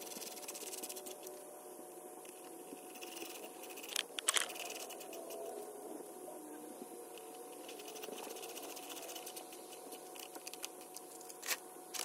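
Faint clicks, scrapes and small metal knocks of a socket ratchet and parts as a replacement fan motor is bolted into a car's radiator fan shroud. Two sharper knocks come about four seconds in, and another near the end.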